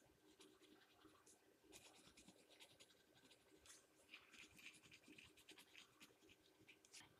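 Faint scratching of a pencil on paper: many short, quick strokes shading in a drawing, coming thicker around the middle.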